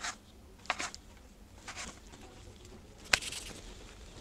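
Plastic dough scraper chopping through a log of dough and knocking on the worktop: four short taps, the sharpest about three seconds in.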